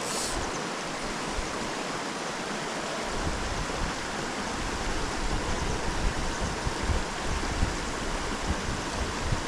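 Mountain stream rushing steadily over rocks, with a low rumble joining in about three seconds in.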